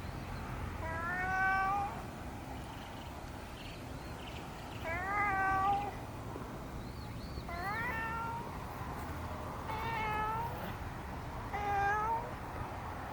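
A cat meowing five times, a call every two to three seconds, most of the calls rising in pitch.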